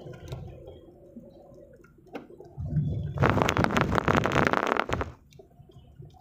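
Low rumble of a car driving, heard from inside the cabin, with a loud crackling rush lasting about two seconds in the middle.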